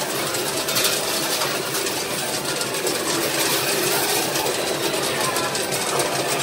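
Arcade coin pusher machine running: a steady mechanical whirr with a dense patter of metal tokens clinking, in a noisy arcade din.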